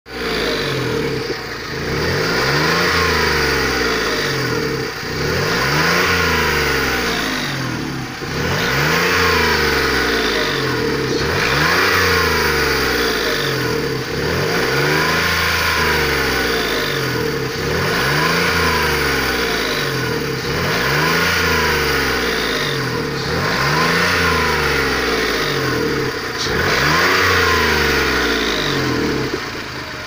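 Skoda 1.2-litre engine blipped repeatedly from idle, about nine times, roughly every three seconds. As the revs climb each time, a whistle rises and falls with them. It is an unexplained whistle that appears around 2500–3000 rpm.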